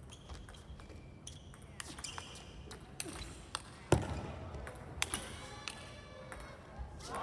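Table tennis rally: the plastic ball clicks sharply off the rackets and the table in a quick back-and-forth. The hardest hit comes about four seconds in.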